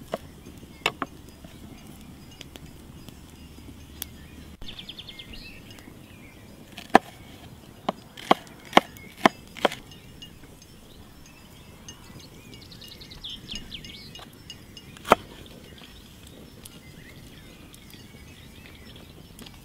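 Large kitchen knife chopping crisp lettuce and bell peppers on a wooden cutting board: sharp, separate knocks of the blade hitting the board, a quick run of five in the middle and one strong single chop later.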